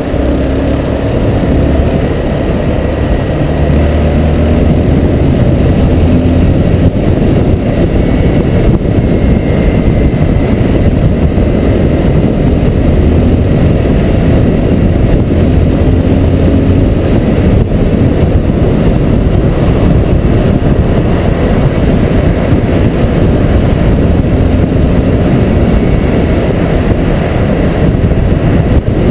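Honda CBR250R's single-cylinder engine running steadily at road speed, half covered by heavy wind rush on the microphone.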